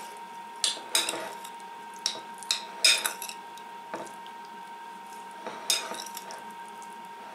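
Metal spoon stirring diced potato salad in a glass bowl: irregular clinks and scrapes of the spoon against the glass, about a dozen in all, spread unevenly.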